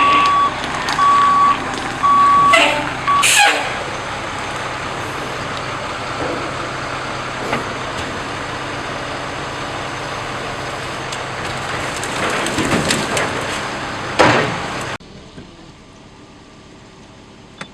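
A truck's reversing alarm beeps a few times over its running engine in the first three seconds. The engine then runs on steadily, with a couple of sharp knocks, until the sound drops off suddenly near the end.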